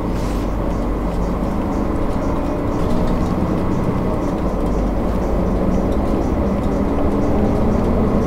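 Steady low rumble of a running motor vehicle, with a droning engine tone that shifts a little in pitch.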